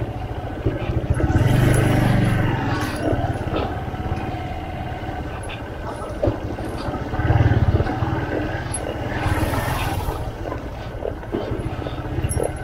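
Motorcycle engine running while riding along a street, swelling louder a few times, over a background of traffic and street noise.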